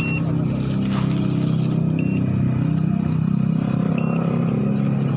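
Steady low motor drone, with a short high beep repeating about every two seconds.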